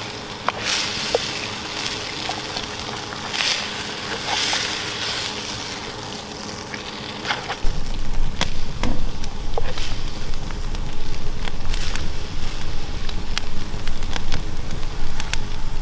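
Venison, bacon and vegetables sizzling in a Dutch oven over a campfire as they are stirred. About eight seconds in it changes to a wood fire crackling, with scattered sharp pops over a steady low rumble.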